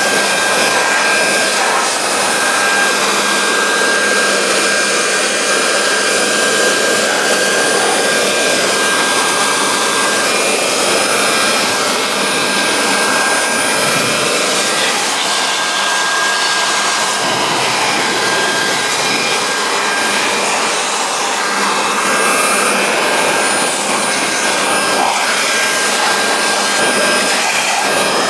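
Small electric leaf blower running steadily, air rushing out of its tube over a car's engine bay, with a thin high motor whine above the hiss.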